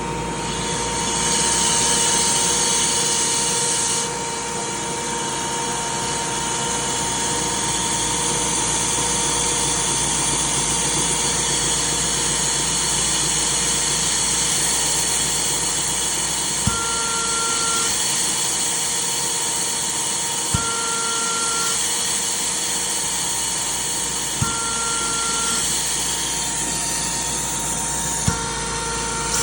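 Chicago S5-15LA air compressor running steadily on test after a complete overhaul, with a high air hiss that is stronger for the first few seconds and then drops off suddenly. In the second half a sharp click comes about every four seconds, each followed by a brief high tone.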